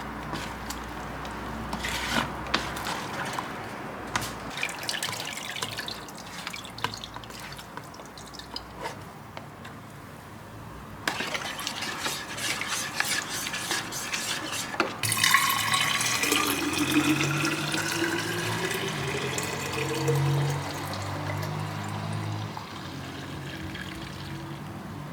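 Light kitchen clicks and clatter, then about fifteen seconds in, water running into a container, its pitch rising steadily as the container fills.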